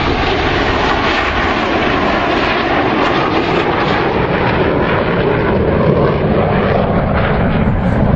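Fixed-wing aircraft flying past, its engine noise loud and steady, with a slight fall in pitch near the start.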